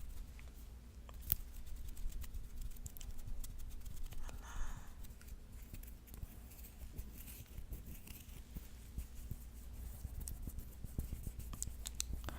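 Fingernails scratching a palm close to a sensitive microphone: a dense, irregular crackle of fine scratches, with one soft breath about four and a half seconds in.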